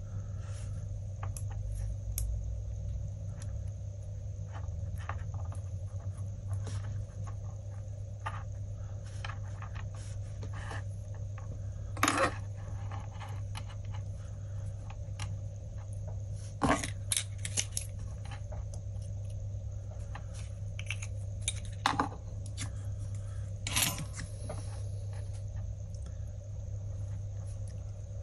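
Scattered small clicks and taps of hands handling a small electronics module, its wire and tools on a wooden workbench, with a few sharper clicks now and then, over a steady low hum.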